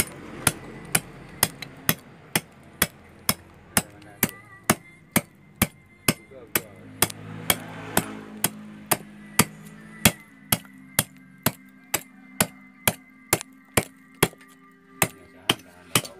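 Hand hammer blows at an even pace, about two a second, in carving a wooden cobek (mortar) by hand.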